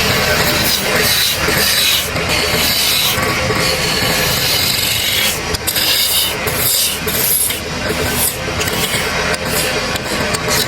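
Wood being worked by a tool: a continuous scraping, rasping noise in uneven strokes.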